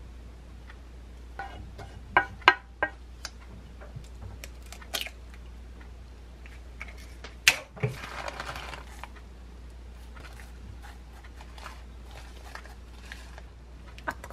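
Food-prep handling sounds: a wooden spoon clacks and scrapes several times as duck-and-onion filling is packed into a hollowed kabocha squash, a sharp click about 7.5 s in, then about a second of rustling as shredded mozzarella is shaken from a plastic bag, and a knock near the end as the squash is set down on a plate.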